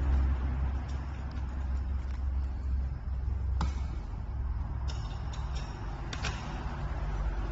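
Steady low rumble with a few sharp clicks and taps from screws and washers being fitted by hand into a gaming chair's backrest, one click about halfway through and a short cluster soon after.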